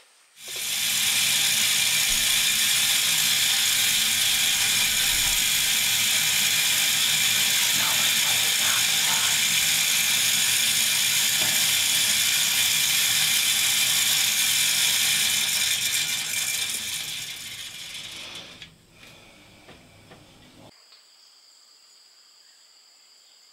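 Timed game feeder going off: its motor-driven spinner whirs and rattles as it flings corn out from under the galvanized hopper. It starts abruptly, runs steadily for about fifteen seconds, then winds down and stops.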